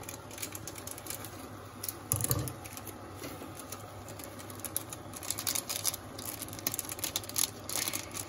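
Plastic seasoning sachet being snipped open with scissors and squeezed out over a pot of noodles: a run of small crinkles and clicks, with a heavier knock about two seconds in.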